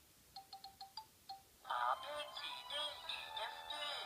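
VTech Winnie the Pooh learning plush toy playing through its small speaker: a run of short electronic beeps, then about 1.7 s in a tinny electronic tune with a sung voice starts.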